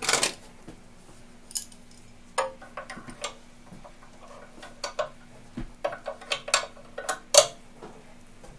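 Pliers and other metal hand tools clinking and clicking against the metal frame of an electric wheelchair: a string of light, irregular metallic clicks, the sharpest one near the end, over a faint steady hum.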